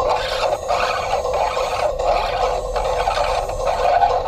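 Harsh noise music: a dense, distorted scraping and screeching, played by hand on objects inside a small wooden box and broken by short gaps about every half second.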